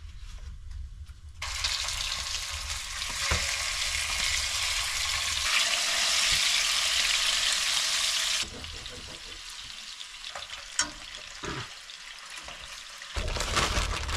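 Pieces of raw chicken sizzling in hot oil in a frying pan. The sizzle starts about a second and a half in and cuts off suddenly about seven seconds later, leaving a few light knocks and scrapes.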